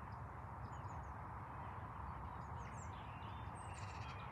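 Steady outdoor background rumble and hiss with faint birds chirping a few times.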